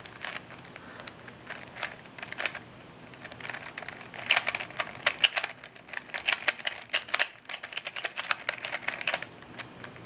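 3x3 Rubik's cube being turned by hand through a last-layer algorithm, its plastic layers clicking and clacking with each turn. The clicks are scattered at first, then come in a fast dense run from about four seconds in until near the end.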